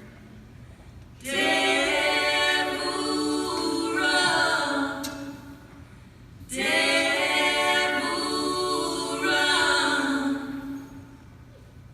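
Women's voices singing a cappella in close harmony: two long sung phrases, each trailing off, with a short pause between them.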